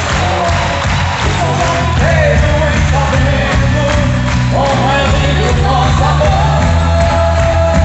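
Music: a song with a singing voice over a bass line and a steady beat.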